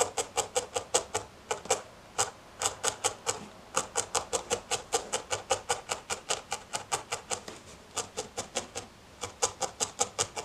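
Felting needle stabbing wool into a foam felting mat: a quick run of crisp little punctures, about four to five a second, with a few short pauses. The folded-over edges of a small flat piece of wool are being felted down.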